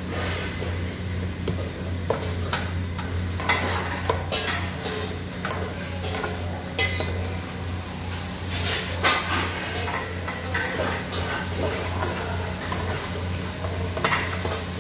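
Long metal spoon stirring and scraping chicken pieces around an aluminium pot, with irregular clinks of metal on metal as the meat sizzles while it sautés. A steady low hum runs underneath.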